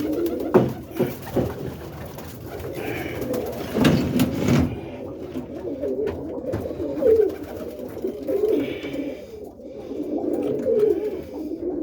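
Birmingham Roller pigeons cooing in their loft, several birds overlapping in low warbling calls. A few sharp knocks near the start and a brief louder rustle about four seconds in.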